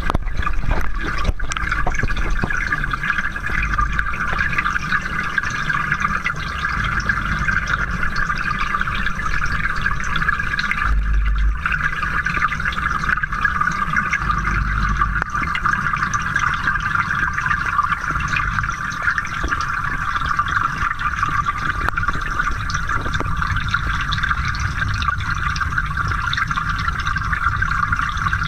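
Steady rushing and bubbling of water heard through a submerged camera, from air bubbles streaming up from an aerator in the water.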